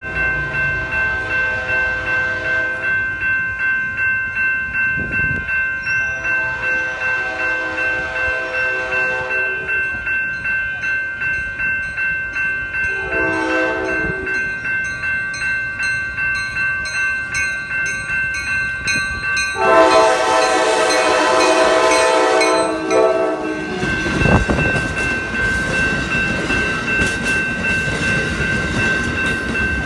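Grade-crossing bell ringing steadily, about two strokes a second, while an approaching Amtrak Downeaster train sounds its horn in the crossing pattern: two long blasts, a short one, then a final long blast, the loudest. About 24 seconds in, the train reaches the crossing with a thump and passes with steady wheel-and-rail noise under the bell.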